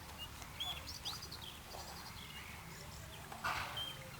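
Scattered short, high bird chirps and tweets over a low steady background rumble, with a brief noisy rush about three and a half seconds in.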